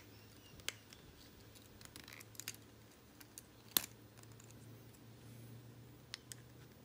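Faint clicks and taps of 3D-printed PLA finger parts and filament pins being handled and pulled back through their holes, with one sharper click near the middle, over a faint steady low hum.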